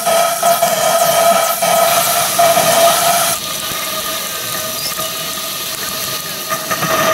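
2-inch scale Ransomes compound traction engine raising steam: a steady high-pitched squeal over hissing steam. It drops in level about three and a half seconds in.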